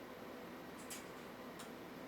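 Quiet room tone with two faint, light ticks, about a second in and again just after.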